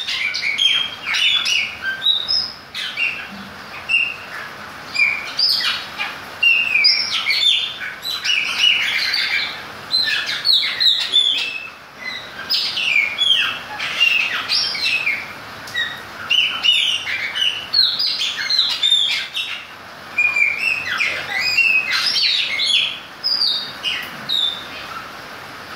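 Chopi blackbird (Gnorimopsar chopi) singing: a rapid string of loud, clear whistles and chirps, broken by short pauses.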